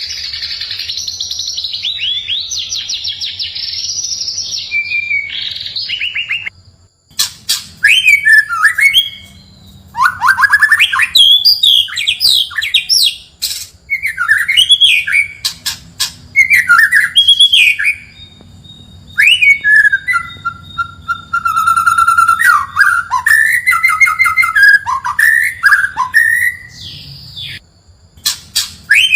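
White-rumped shama (murai batu) singing: a dense, high chattering run first, then, after a brief break about seven seconds in, loud and varied whistled phrases with sweeping notes and sharp clicks.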